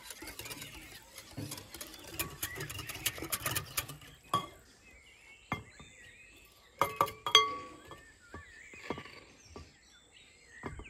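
A metal spoon clinking against bowls as flour is spooned into a glass mixing bowl: a few sharp ringing clinks, the loudest cluster a little past the middle, with birds chirping faintly. Before that, for the first few seconds, dense rustling and clicking from close handling.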